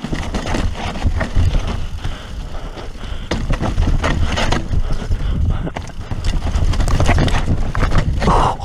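Mountain bike descending a rough, rocky dirt trail: a continuous rumble with rattling and frequent knocks as the tyres and frame take the rocks.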